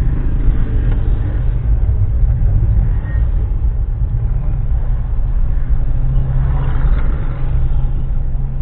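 Car engine and road noise heard from inside the cabin while driving slowly: a steady low rumble.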